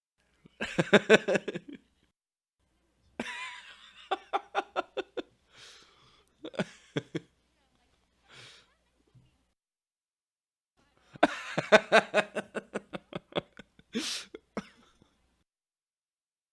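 A man laughing in four separate bouts of quick, breathy chuckles, with silent gaps between them; the longest and loudest bout comes about eleven seconds in.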